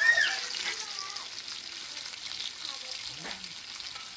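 Bone-in steak sizzling in foaming butter on a round griddle pan, a steady frying hiss that is loudest at the start and slowly dies down.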